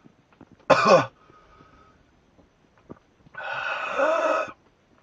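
A man coughing and groaning from the harsh taste of Buckley's cough syrup he has just swallowed. A short, sharp cry falling in pitch comes about three-quarters of a second in, and a longer rasping cough about three and a half seconds in.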